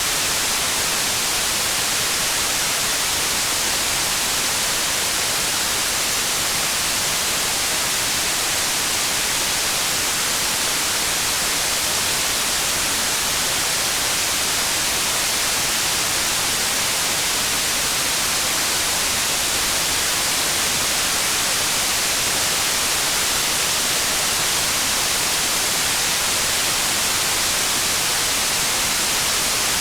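Steady rain, a dense even hiss with no separate drops or thunder.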